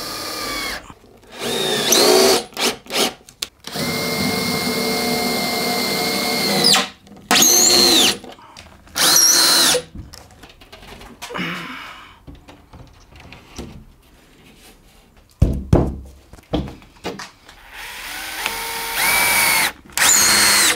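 Cordless 18 V drill-driver driving screws through an OSB panel into wooden battens, in about five short runs with the motor whine rising as each one starts. A few knocks come about two-thirds of the way through.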